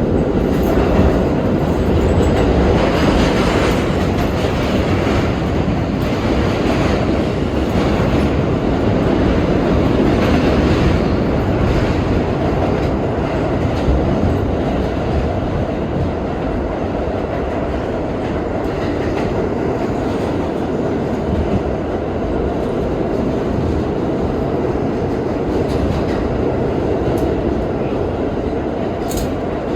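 R32 subway car running along the track, heard from inside the car: a steady rumble of wheels on rail with clicks at the rail joints, a little louder in the first half.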